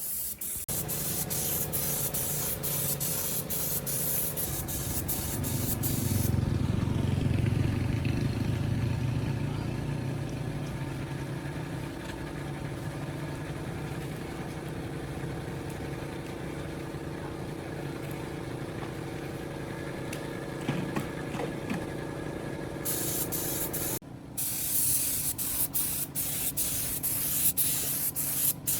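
A motor running steadily, with a loud hiss of spray over the first few seconds and again near the end.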